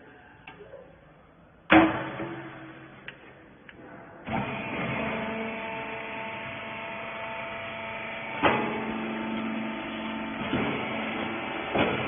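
A loud bang, then a couple of seconds later a wiper baler's hydraulic power unit starts and runs with a steady hum, broken twice by sharp clanks of the machine.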